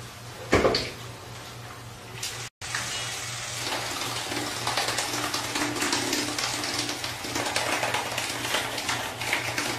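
High-voltage spark electrode smeared with toothpaste, crackling and hissing steadily while held in the mouth. A sharp knock comes about half a second in, and the crackling hiss starts a couple of seconds later, over a faint steady hum.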